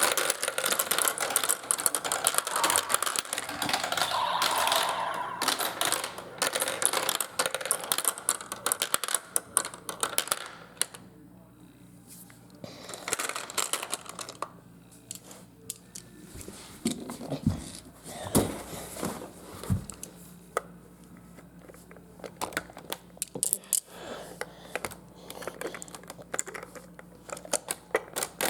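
Marbles rattling and clattering down a marble run track: a dense run of rapid clicks for the first ten seconds or so, then sparser separate clacks and knocks as fewer marbles roll.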